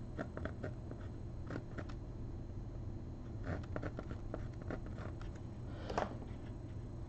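Faint scratching and light ticks of a white charcoal pencil sketching on a painting board, with a slightly sharper tick near the end, over a low steady room hum.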